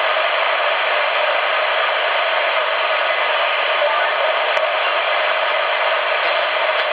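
CB radio on 27.555 MHz upper sideband giving a steady hiss of band noise through its speaker, with no readable voice. A faint click comes about four and a half seconds in.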